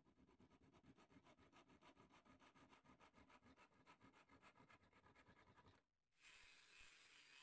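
Hand saw cutting through a small strip of teak offcut, its strokes in a quick, even rhythm that stops shortly before the end. After a short pause a steady hiss begins.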